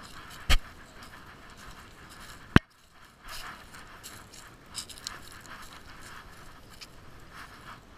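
Two sharp knocks on a dog-worn action camera, about half a second and two and a half seconds in, the louder second one. Between them, irregular scraping and rustling from the dog's muzzle nosing through dry grass and leaves close to the camera.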